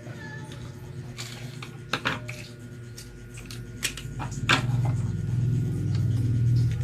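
A few sharp clicks and taps from handling a laptop, then a loud low hum that starts about four and a half seconds in and holds to the end.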